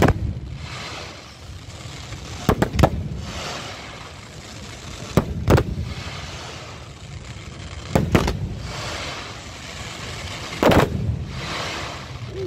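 Aerial firework shells bursting: sharp bangs about every two and a half seconds, several coming as two in quick succession, each followed by a second or two of crackling hiss.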